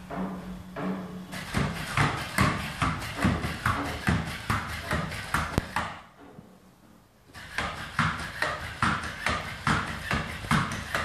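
NAO humanoid robot walking on a desktop: its feet tap in quick runs of several steps a second, with a steady low hum from its motors at first and a short pause in the taps about six seconds in.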